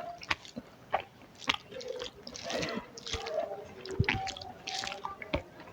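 Close-miked chewing and wet mouth smacks while eating rice and curry, with irregular soft clicks and squelches.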